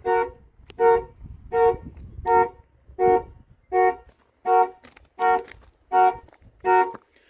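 Car horn honking in short, evenly spaced blasts, about one every 0.7 seconds: the factory anti-theft alarm has been triggered by the door being opened while armed.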